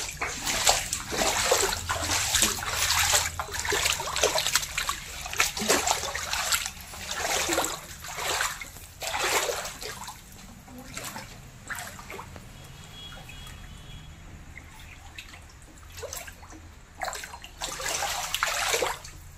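Floodwater on a house floor splashing and sloshing in irregular bursts. The splashes are dense for about the first ten seconds, thin out in the middle and pick up again near the end.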